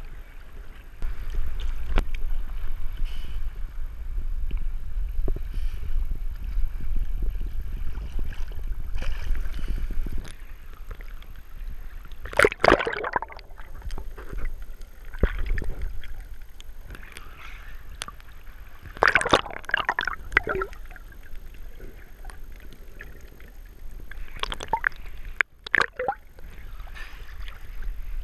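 Sea water sloshing and gurgling over a waterproof camera held at the surface and dipped under it, with a low rumble during the first ten seconds. There are louder bursts of splashing about twelve, nineteen and twenty-five seconds in.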